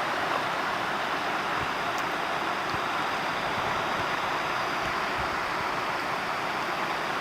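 Steady rush of flowing river water, an even hiss-like noise that holds at one level throughout.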